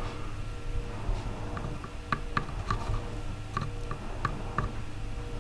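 Light, irregular clicks and ticks of small hand tools and wires being handled as wires are prepped for soldering, over a low steady hum.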